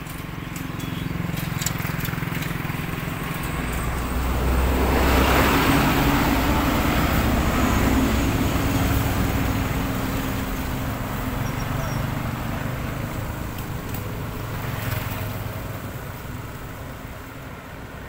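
Road traffic: a motor vehicle approaches and passes with a low engine hum and tyre noise, swelling to its loudest about five to nine seconds in and slowly fading, with a smaller pass near the end.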